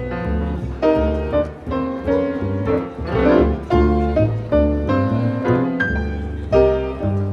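Jazz piano and double bass playing a slow lounge tune: piano chords struck every half second or so over a low bass line.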